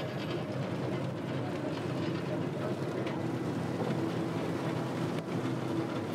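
Fishing trawler's engine running steadily, with water rushing and splashing along the hull.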